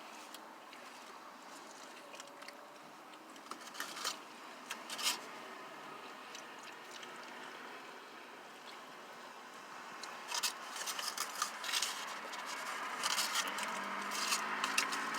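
Quiet eating sounds: food and paper wrappers being handled, with scattered soft clicks and scrapes over a steady low hiss. The clicks come more often in the last few seconds, and a low hum comes in near the end.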